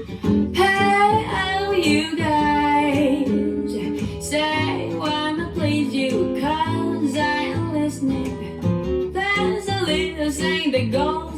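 A pop song played back through a WiiM Vibelink amplifier and speakers: guitar and bass under a sung vocal, which comes in several short phrases.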